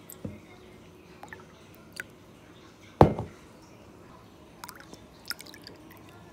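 Liquid being poured and dripping into a bowl, with scattered small clicks and one sharp knock about three seconds in.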